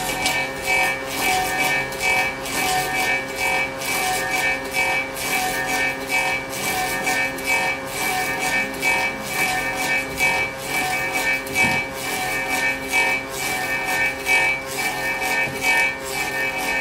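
Electric copying lathe carving the outside shape of a wooden shoe: a steady motor whine with a rhythmic rasping of the cutter shaving the turning wood block.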